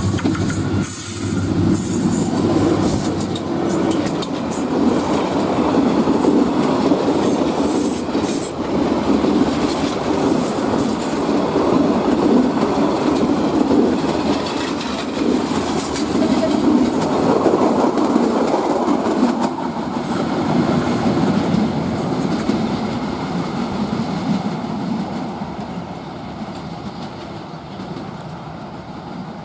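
Kortoya Express passenger train rolling along the track, its coach wheels clattering over the rail joints with some squeal from the wheels. The noise fades over the last few seconds as the train draws away.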